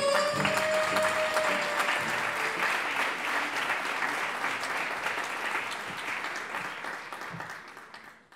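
Audience applauding as the last held note of the music dies away; the applause fades out near the end.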